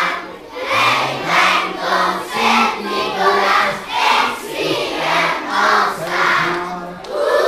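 A large group of children singing together in a regular beat, about two pulses a second.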